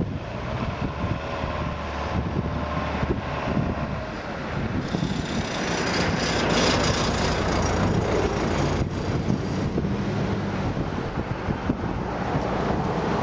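Rushing water of a shallow creek, with wind buffeting the microphone and a faint low steady hum underneath. Near the end there is splashing as a brown bear runs through the water.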